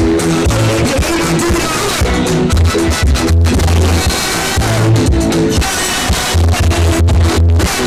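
Loud live music over a concert PA system, with a heavy, repeating bass line, recorded from amid the crowd.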